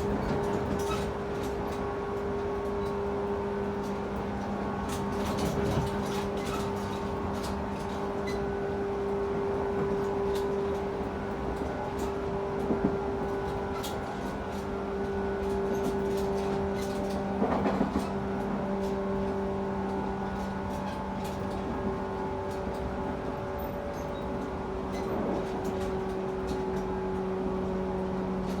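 Interior running sound of a 113-series electric train motor car at steady speed: a constant hum over the rumble of the wheels on the track. Short knocks come now and then, with a quick cluster of them partway through.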